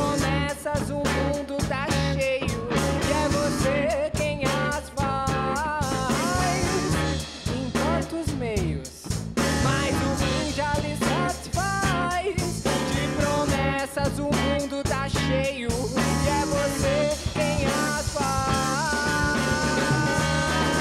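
Rock band playing an instrumental passage: an electric guitar lead with bending, sliding notes over bass guitar and a full drum kit.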